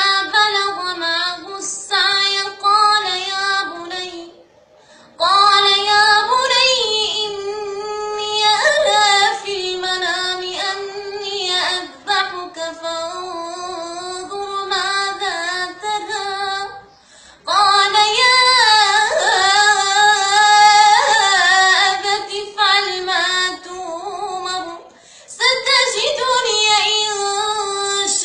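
A single high-pitched voice singing long, ornamented melodic phrases with no accompaniment, pausing briefly between phrases three times.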